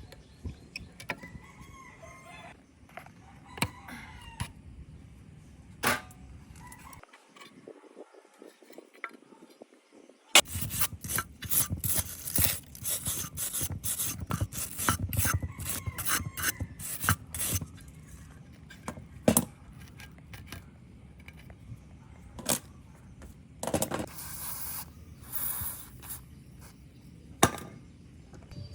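Tools and metal parts clinking, tapping and scraping in a series of sharp knocks, busiest and loudest in the middle stretch. A bird calls faintly a few times.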